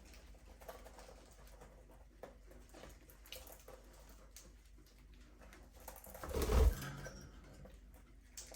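Budgerigars with faint scattered chirps and small clicks and taps, and one louder rustling thump about six seconds in.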